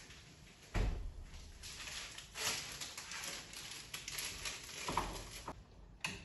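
Kitchen handling sounds: a refrigerator door thumps shut about a second in, followed by rustling and light knocks as things are handled at the stove and a spoon is put into a saucepan.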